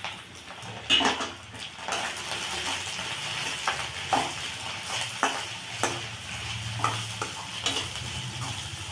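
Metal spatula scraping and knocking irregularly against a stainless steel kadai while scrambled egg fry is stirred, over a steady sizzle of frying.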